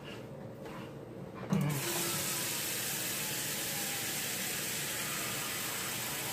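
Kitchen tap turned on about a second and a half in, with a small knock, then water running steadily.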